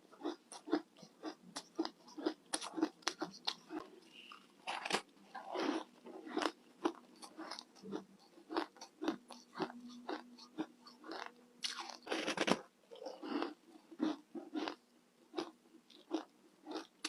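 Close-miked biting and chewing of crunchy freezer ice: a quick run of sharp crunches, several a second, with a louder, longer crunch about two-thirds of the way through.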